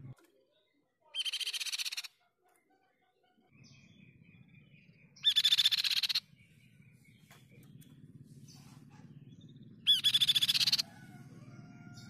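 Crescent-chested babbler (tepus pipi perak) singing three short, fast trills of rapidly repeated high notes, each under a second long and about four seconds apart, the last two louder than the first.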